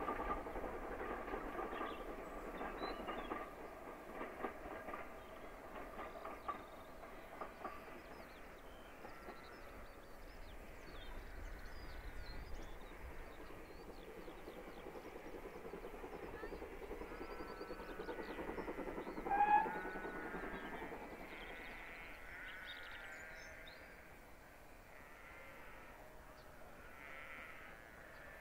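Steam locomotive hauling coaches, its exhaust beats and train running fading as it draws away. Birds sing as it fades, with a brief loud call about two-thirds of the way through.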